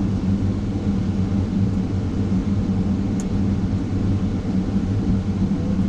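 Caterpillar 930 wheel loader's diesel engine running steadily while the machine travels on the road, a constant low drone with a steady hum.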